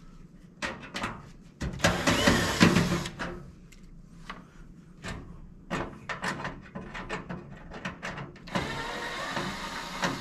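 A cordless drill-driver runs twice, backing out two screws from the range hood's metal light panel: a burst of about a second and a half near the start and a second, longer run near the end. Scattered short clicks of handling fall between the two runs.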